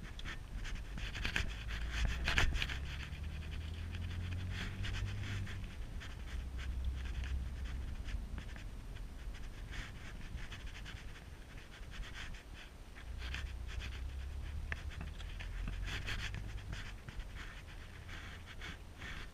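Peugeot car engine heard inside the cabin, rising in pitch as the car pulls away about two seconds in and again near the middle, with gear changes in between. Over it runs a rough, breathy rustling noise.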